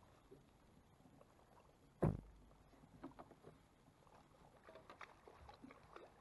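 A single sharp thump about two seconds in, the loudest sound, with a short low rumble after it, then faint scattered knocks and clicks of handling aboard a fishing boat.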